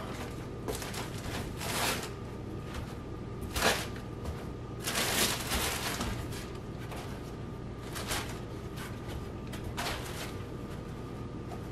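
Rustling and handling of tissue packaging as the tissue is stacked into a storage basket, in short irregular bursts a second or two apart.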